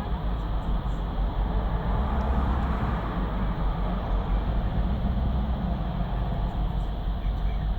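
BMW 750Li V8 engine idling, a steady low rumble whose lower notes swell and ease unevenly every second or two.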